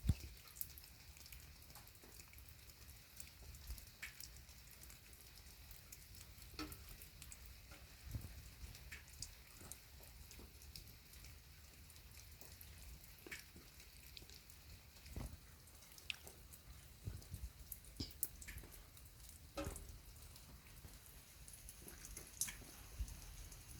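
Rain falling, a faint steady patter with scattered single drops and drips landing irregularly.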